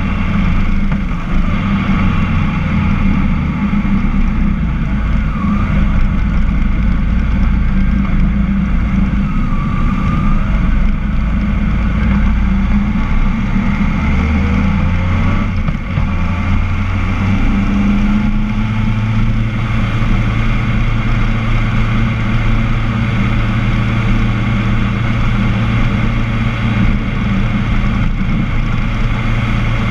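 Car engine running and tyres rolling, heard from inside the cabin while driving through a rock road tunnel. A steady low hum with road noise, its engine note shifting pitch a few times around the middle.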